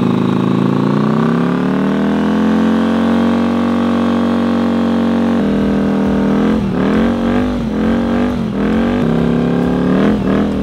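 A 1987 Yamaha Virago 750's air-cooled V-twin is held at high revs in a burnout, the bike held on its front brake while the rear tyre spins on the pavement. The revs climb over the first two seconds and hold. About halfway through, a rough low rumble joins, and the revs then dip and surge four or five times.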